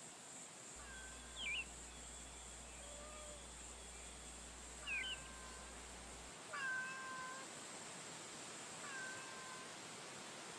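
Street cat meowing softly in short calls, about four of them a few seconds apart, some with a quick sharp chirp.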